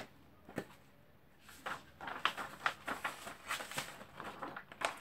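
Sheet of paper being handled: a light tap about half a second in, then from about a second and a half on a run of short crackles and rustles as it is held up and moved.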